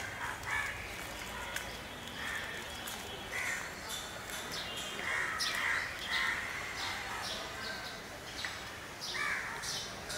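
Crows cawing again and again, a short harsh call every second or two, with smaller birds chirping in between.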